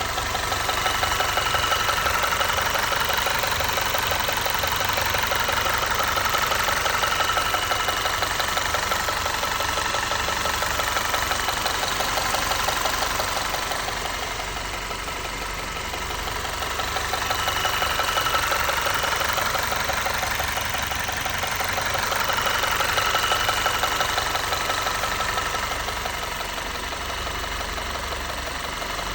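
Audi/VW 2.0T turbocharged four-cylinder engine idling with a fast, even tapping tick, the fault noise of a knock at idle.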